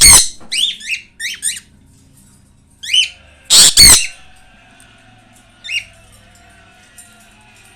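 Caged pet birds squawking: a loud, harsh screech at the start and a double screech about three and a half seconds in, with short chirping calls between them and one more chirp near six seconds.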